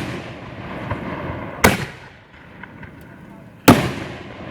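Fireworks shells bursting with loud booms, two of them about two seconds apart, each trailing off in a rumbling echo. The tail of an earlier burst is fading as the sound begins.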